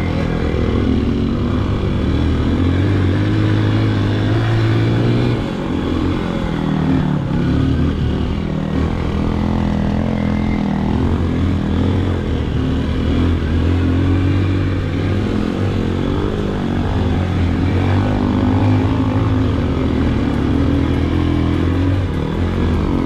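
Motorcycle engine running under way, its pitch rising and falling with the throttle, with a short dip about five seconds in.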